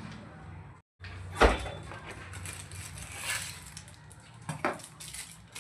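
Items and packaging being handled by hand during an unboxing: a solid knock about a second and a half in, light rustling and tapping, and a second knock near the end. There is a brief dropout to dead silence just before the first knock.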